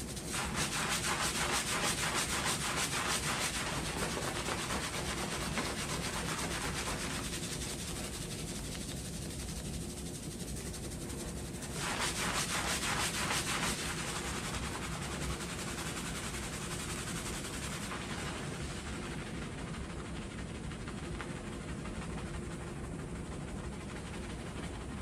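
Fingers rapidly scrubbing shampoo-lathered hair and scalp, making a fast, rhythmic rubbing of foam. It is loudest in two spells, right at the start and about halfway through.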